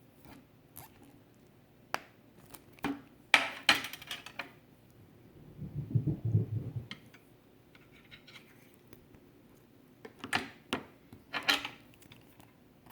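Hand crimping tool squeezing a heat-shrink butt connector onto a wire: sharp clicks and scrapes in a few clusters, with a low handling thump about six seconds in.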